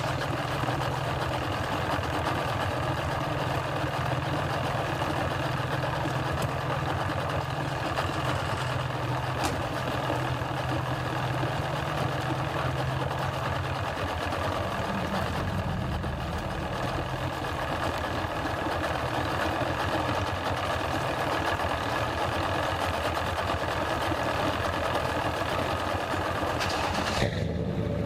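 Outboard motor on a small aluminium fishing boat idling steadily, its note shifting about halfway through.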